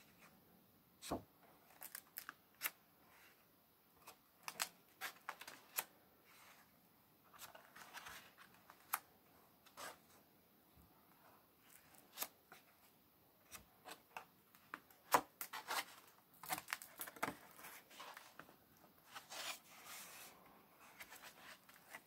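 Stiff, paint-laden pages of a Dylusions A4 art journal being handled and turned: dry paper rustling and crackling, scattered sharp ticks and taps, and a few longer rustles about three-quarters of the way through as pages are flipped over.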